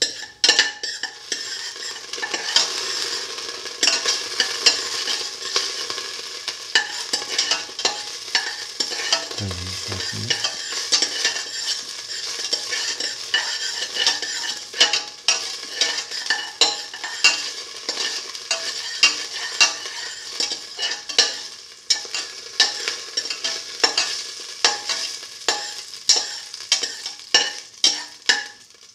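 Cumin seeds sizzling and spluttering in hot oil in a stainless steel pan, stirred with a spatula. A steady hiss runs full of crackles, and sharp pops stand out more and more in the second half as the seeds toast.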